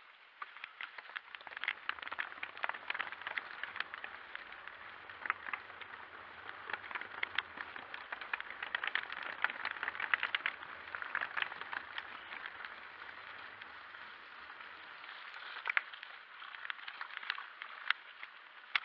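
Full-suspension mountain bike tyres rolling over a wooden boardwalk and then a wet gravel trail, a steady rolling hiss full of small crackling clicks from grit under the tyres. A faint low rumble runs through most of it and fades out a few seconds before the end.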